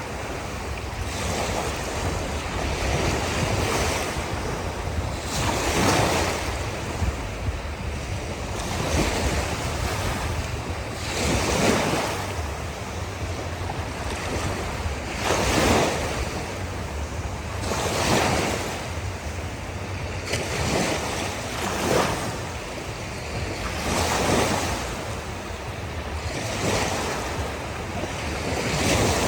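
Ocean waves breaking and washing on a shore, a surge of hissing surf every two to three seconds over a steady low rumble.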